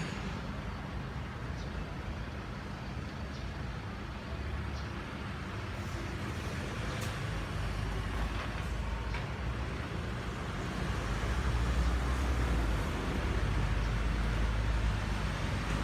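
Steady low rumble of distant road traffic, growing louder about eleven seconds in, with a few faint clicks.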